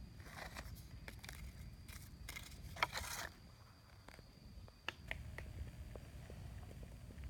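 A small hand digging tool scraping and prying through damp soil and leaf litter: a run of scratchy rasps over the first three seconds, the loudest near three seconds, then a few light clicks about five seconds in. A faint steady high tone runs underneath.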